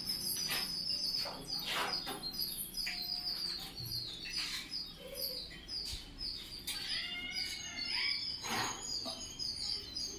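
Birds chirping: many short, high chirps repeating, with a longer call that bends up and down in pitch about seven seconds in.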